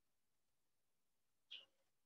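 Near silence: room tone, with one brief faint high-pitched sound about one and a half seconds in.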